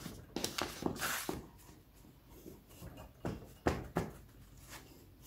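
Hands pressing pastry dough into a metal tart pan: soft rubbing and pressing with a few light knocks and clicks of fingers against the pan, the sharpest a little over three and a half seconds in.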